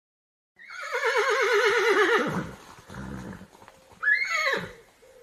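Horse neighing: a long whinny with a fast, quavering pitch that falls away at the end, a low breathy sound, then a second, shorter whinny that rises and drops.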